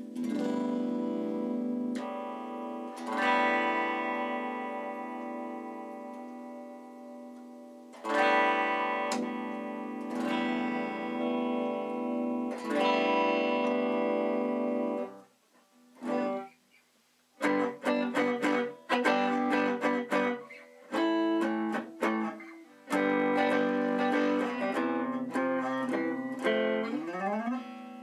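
Small-bodied semi-hollow electric guitar of the Gibson CS-356 type being played. Several chords are struck and left to ring out and fade. After a short pause comes a quicker passage of picked notes, ending in a descending run.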